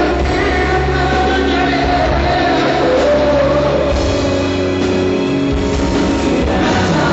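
Live rock-style concert music: a male singer holds long, wavering notes over a loud band with heavy bass.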